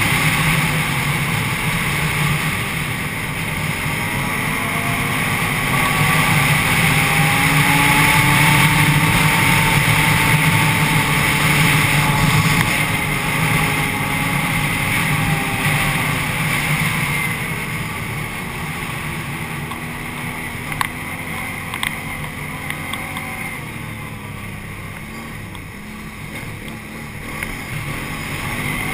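Can-Am Renegade 800 ATV's V-twin engine running under way, its pitch rising and falling with the throttle. It grows quieter in the second half, with a couple of brief clicks near the end.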